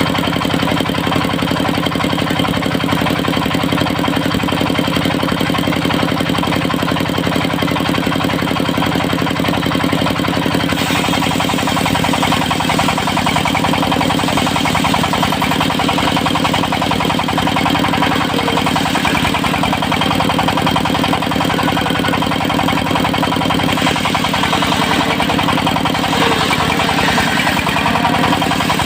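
Small stationary engine of a portable circular sawmill running at a steady speed, with a harsher hiss joining it about ten seconds in.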